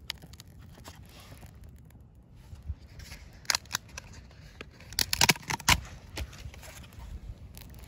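Sharp clicks and snaps, one about three and a half seconds in and a quick cluster around five seconds in, from birch bark and kindling as a small fire is lit and tended.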